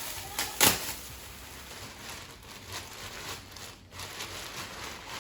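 Gift wrapping and packaging rustling and crinkling as a present is unwrapped by hand, with one sharp click about half a second in.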